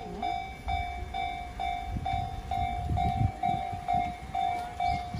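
Japanese level-crossing warning bell ringing "kan-kan", an electronic tone repeated about twice a second, sounding because the barrier is down for an approaching train. A low rumble swells beneath it from about two seconds in.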